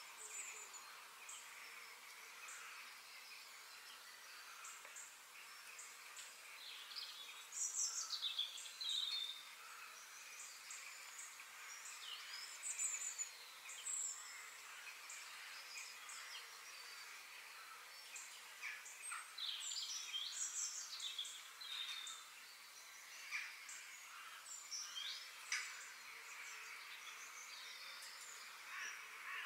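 Birds chirping and calling in short, sweeping phrases over a steady outdoor hiss of background ambience.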